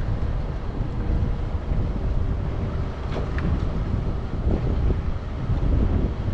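Wind buffeting the microphone, a steady, rough low rumble.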